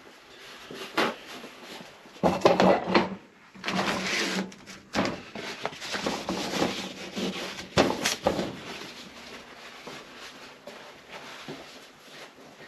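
Irregular knocks, clunks and rustles of handling, loudest a couple of seconds in and again about eight seconds in.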